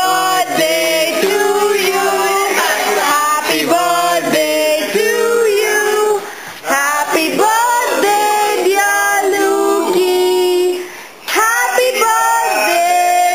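Singing in phrases of held notes, with two short breaks about six and eleven seconds in.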